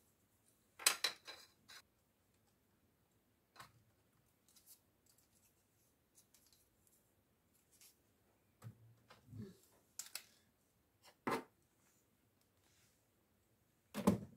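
Plastic puzzle-cube stands and cubes being handled and set down on a wooden shelf: scattered light clicks and knocks, a few louder ones about a second in, near eleven seconds and at the end.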